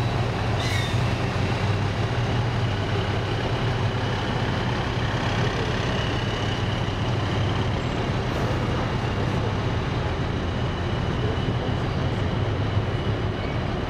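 Diesel engines of heavy wheeled military vehicles running as they drive past in a column: an eight-axle missile launcher truck, then eight-wheeled armoured personnel carriers. A steady low rumble with tyre noise, and a faint high whine above it.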